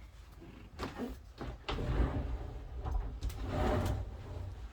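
Bathroom fittings in a travel trailer being handled: a few sharp clicks in the first two seconds, then a longer sliding rub and rumble.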